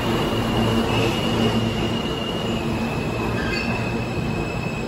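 R160 subway train rolling along the platform, its wheels giving a steady high squeal over the rumble of the cars.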